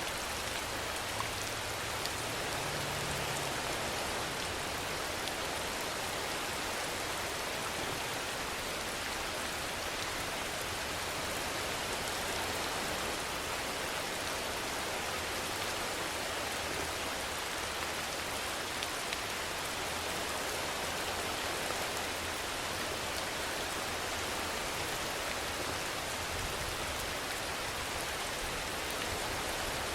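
Steady rainfall: an even hiss of rain with an occasional sharper drop tick.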